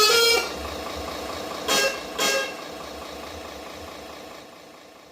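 RC miniature truck sound module playing a basuri melodic horn, the tune ending just after the start, then two short horn toots about two seconds in. Under it a low simulated engine idle runs and fades away toward the end.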